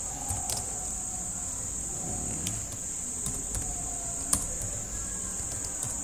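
Computer keyboard being typed on, a few scattered key clicks with the sharpest about four seconds in, over a steady high-pitched whine.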